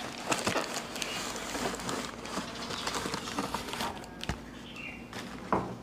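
Bubble wrap and a cardboard shipping box rustling and crinkling as a bubble-wrapped item is pulled out of the box, with irregular small crackles and one sharper click about four seconds in.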